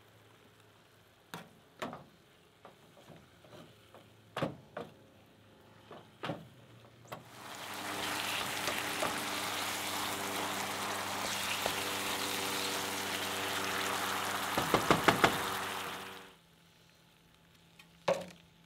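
Ground-meat taco filling sizzling in a nonstick skillet as it is stirred with a wooden spatula. The sizzle starts about a third of the way in, has a quick run of sharp taps of the spatula on the pan near its end, and then cuts off suddenly. Before it come a few scattered light knocks and clicks.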